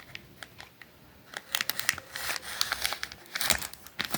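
Parcel packaging crinkling and rustling as it is handled. It starts about a second and a half in, after a short quiet stretch, and goes on in quick crackly bursts.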